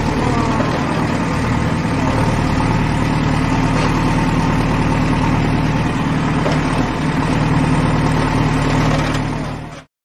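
Trencher engine running steadily, fading out near the end.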